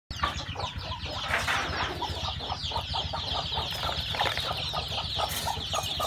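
A brood of young chicks peeping without pause: many high, falling peeps overlapping. Under them, short lower clucks repeat about three to four times a second.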